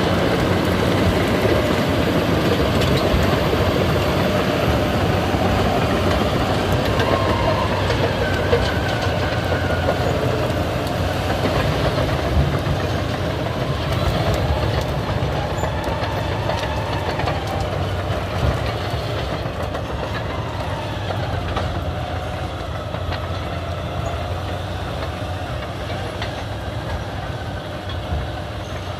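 Caterpillar D8 crawler bulldozer working: its diesel engine runs steadily under the clattering of its steel tracks, slowly growing fainter.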